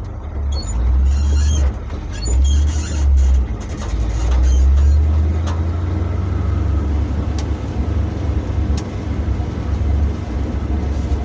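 Pickup truck's engine and drivetrain rumbling low as it drives slowly through an intersection, heard from inside the cab, with tyre and road noise.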